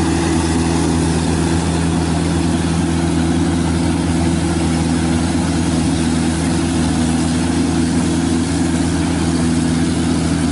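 Rice combine harvester's engine running steadily as the machine cuts rice, a constant, even drone without breaks.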